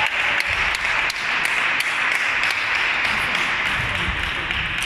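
Applause, with many hands clapping steadily for several seconds, greeting a point just won in a table tennis match.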